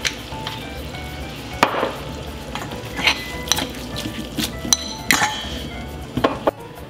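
Spaghetti and eggplant frying in olive oil in a nonstick frying pan on a gas hob, with a quiet sizzle. Several sharp knocks and clinks come as the pan is tossed and stirred.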